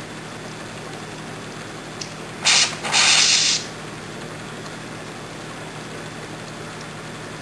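An oxyhydrogen (HHO) torch being lit with a hand-held lighter at its fine tip. There is a light click, then two loud bursts of hiss, a short one and a longer one, after which only a faint steady hiss remains.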